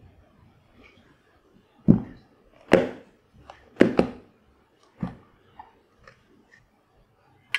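Plastic snap-lock latches of a stainless steel lunch box lid being unclipped one after another: five sharp snaps over about three seconds, starting about two seconds in.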